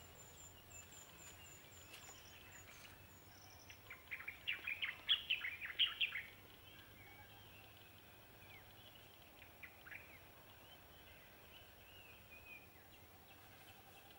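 A bird calling in a quick run of sharp chattering notes for about two seconds, starting about four seconds in, over faint outdoor background noise. A thin, high, rapidly repeated chirping comes near the start, and a few weaker calls follow later.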